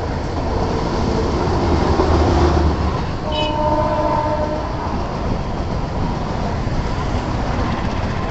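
Express train running through a station at speed: a heavy rumble builds as the locomotive passes, then its horn sounds one two-tone blast of about a second and a half, three seconds in, and the coaches keep rolling past.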